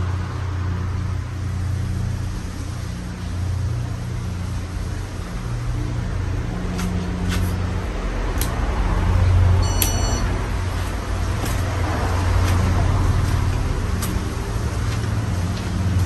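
Casablanca California Zephyr ceiling fan running: a steady motor hum with the rush of air from the blades, and a few light ticks scattered through it.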